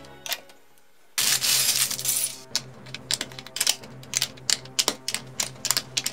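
Plastic LEGO bricks clicking as they are pressed onto a baseplate by hand, many sharp clicks in quick irregular succession. About a second in there is a short burst of rustling noise.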